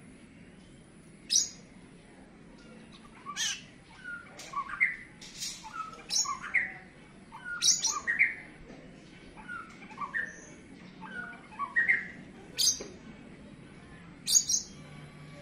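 Oriental magpie-robin singing a challenging song aimed at a rival: short whistled notes broken about five times by loud, harsh, scratchy calls.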